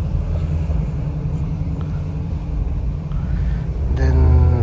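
Low, steady rumble of a car's engine and tyres heard from inside the cabin as it creeps along in slow traffic.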